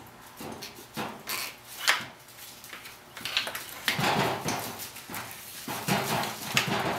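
Irregular scrapes, clicks and rattles of hardware being worked as the bumper is taken off a Stryker ambulance cot's drop frame.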